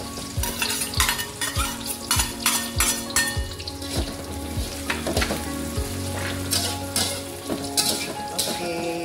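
Sliced red chillies and shallots sizzling in hot oil in a steel wok, with a metal spatula scraping and clinking against the wok as they are stirred.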